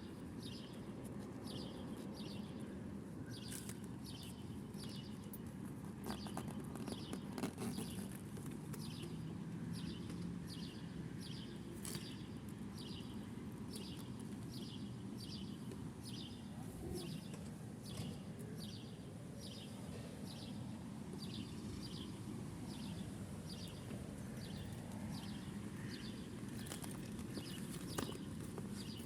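An animal chirping: a short high chirp repeated steadily about twice a second, over a low steady hum.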